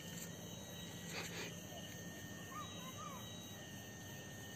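Quiet night-time outdoor background with a faint steady hum and thin high tones. There are a couple of soft taps about a second in and a few short, faint chirping calls around three seconds in.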